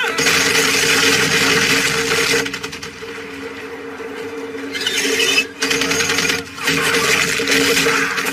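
Rapid automatic gunfire in two long stretches: the first over the opening two seconds or so, the second from about five seconds in. A steady low hum runs under it.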